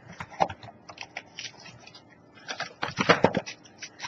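Plastic snack wrapper crinkling and crackling as it is handled and opened, in irregular clicks that bunch together about two and a half to three and a half seconds in.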